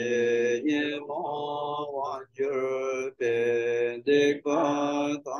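A Tibetan Buddhist lama chanting a liturgy in a melodic, near-monotone recitation. Short held phrases of about a second follow one another with quick breaths between them.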